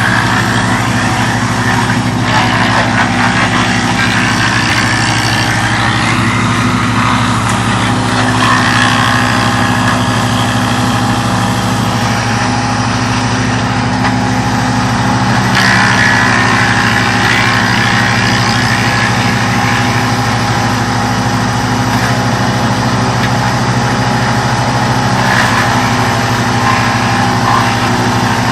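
Engine-driven wood chipper running at a steady pitch, with a rough, hissing upper noise that swells several times.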